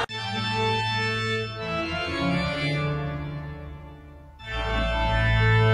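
Organ music playing held chords. They fade about four seconds in, then a loud chord with a deep bass note comes in.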